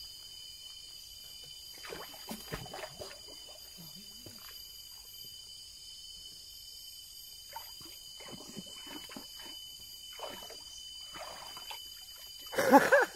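Steady high-pitched insect buzzing of a tropical forest, with scattered small rustles and water splashes from handling the line at the stream's edge. Near the end comes a short, louder burst of a person's voice.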